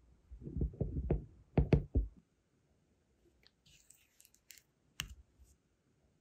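A brass wax-seal stamp being pressed and worked into soft sealing wax on a silicone mat: a quick run of dull knocks and taps in the first two seconds. Then light clicks and a brief rustle as the stamp is handled and lifted, with one sharp click about five seconds in.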